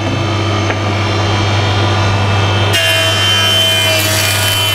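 8-inch long-bed helical-head jointer running with a steady motor hum while a timber board is fed over its cutterhead and planed. A little over halfway through the sound turns suddenly brighter and hissier.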